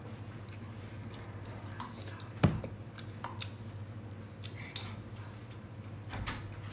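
A person eating on a mukbang: soft wet chewing and squishing with scattered small clicks of utensils, and one sharp knock about two and a half seconds in, over a steady low hum.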